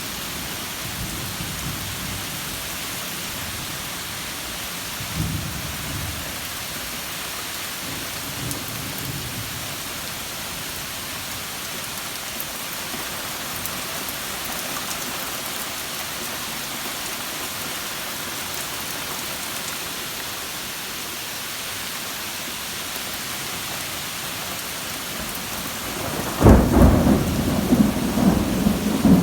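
Steady summer rain hissing, with soft rolls of distant thunder about 5 and 8 seconds in. Near the end a much louder, deep thunder rumble breaks in and keeps rolling.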